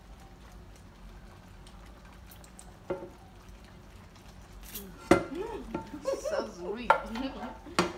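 Plastic ladle and spatula stirring and scraping sauce in a frying pan. It is quiet for the first few seconds with one knock near the middle, then busier from about five seconds in, with sharp clacks of the utensils against the pan.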